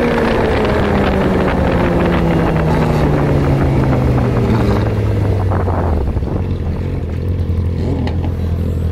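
Yamaha R6 sport bike's inline-four engine, revs falling steadily as the bike rolls off the throttle and slows, then settling at a low steady speed near idle about six seconds in. Wind and road noise fade as it slows.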